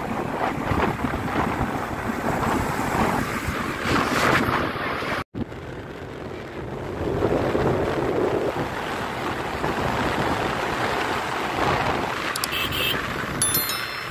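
Wind rushing and buffeting over the microphone of a moving motorcycle, with road and engine noise beneath. The sound cuts out for a moment about five seconds in.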